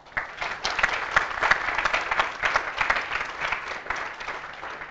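Audience applauding: a burst of many hands clapping that starts at once and dies away near the end.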